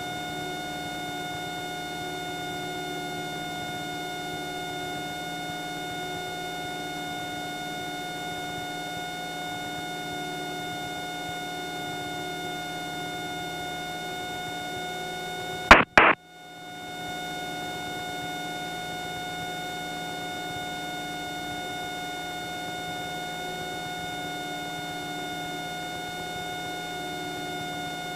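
Steady drone of a Cessna 172's engine and propeller in climbing flight, a constant hum with a whine over it. A little past halfway there is a short loud crackle, and the sound cuts out for a moment before the drone returns.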